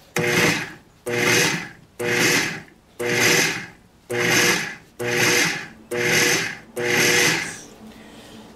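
KitchenAid food processor pulsed eight times, about once a second. Each pulse is a short whir of the motor with the blade chopping cooked rice and sautéed mushrooms, onions and peppers in the bowl.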